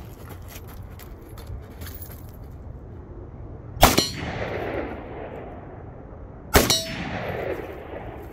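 Two rifle shots about three seconds apart, each with a long echo, followed by the clang of the steel target being hit.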